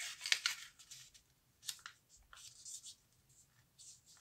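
A square of origami paper being folded corner to corner by hand on a tabletop: short, scratchy paper rustles and scrapes as it is brought over and pressed flat, the loudest about a third of a second in.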